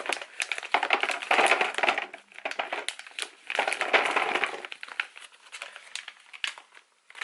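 Plastic food packaging crinkling and crackling as it is handled, in two louder bouts about a second in and around four seconds in, with scattered small clicks between.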